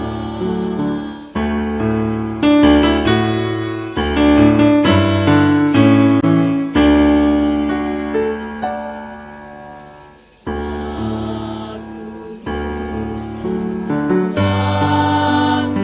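Music: an electric keyboard accompanying a choir, striking and holding chords every second or two over a strong bass, with choral singing weaker beneath it. The playing thins briefly about ten seconds in, then picks up again.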